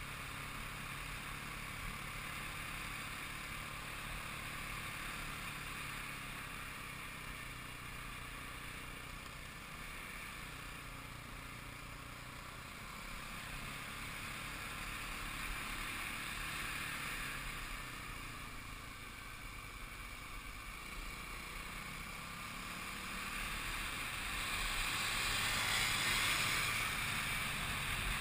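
Kawasaki KLX250 single-cylinder dirt bike engine running at a steady cruise, mostly buried under wind rushing over the camera microphone. The wind noise swells louder near the end.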